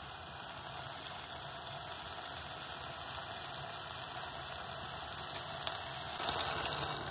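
Risotto rice simmering in a stainless steel saucepan with a steady, soft sizzle as the last of the liquid cooks off. Near the end a louder splashing hiss rises as broth is added to the pan.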